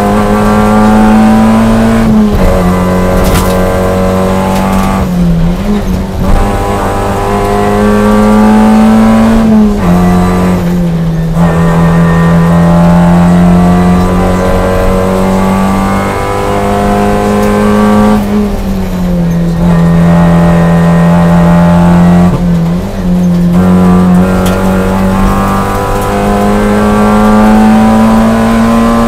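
Toyota Yaris rally car's engine at full stage pace, heard from inside the cabin. The engine note climbs and then drops sharply at each gear change, several times over, with brief lifts off the throttle between.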